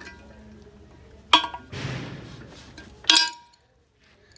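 Two sharp metal-on-metal clinks with a short ring, about a second in and again about three seconds in, from steel tools working a stuck valve stem out of a wheel rim, with a rushing scrape between them.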